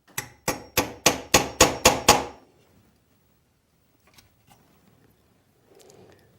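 Hammer tapping a drawer lock chisel into wood, about eight quick sharp strikes at roughly four a second, deepening a strike mortise. A few faint ticks follow.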